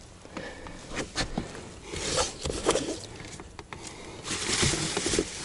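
Scattered clicks and rustling of close handling noise while a freshly landed snakehead is held, with bouts of louder rustling about two seconds in and again near the end.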